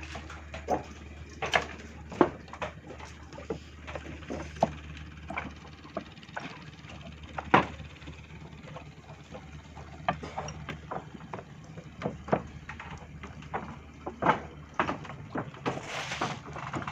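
Footsteps and irregular knocks on a wooden plank walkway, the loudest thud about halfway through. A low steady hum underneath fades out about halfway.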